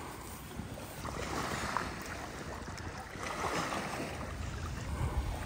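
Lake water washing and surging against the shore in two swells, with wind on the microphone.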